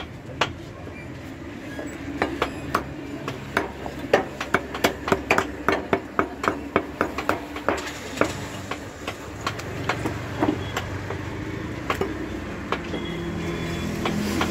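Butcher's cleaver chopping mutton on a wooden block: a run of sharp, irregular chops, about two to four a second, thinning out in the middle and picking up again near the end. A steady low hum runs beneath and grows louder in the last few seconds.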